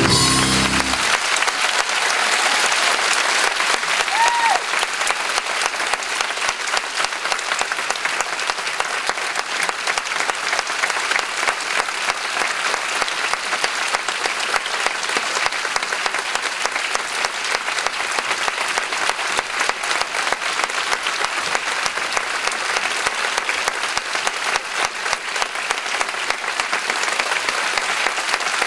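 Theatre audience applauding steadily, a dense crowd of clapping hands. The closing notes of the music stop about a second in.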